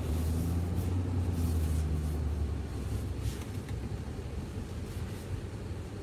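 2019 Ford F-250 King Ranch's 6.7-litre Power Stroke V8 turbodiesel and road noise heard from inside the cab while driving: a low, steady drone that is strongest for about the first three seconds, then eases off.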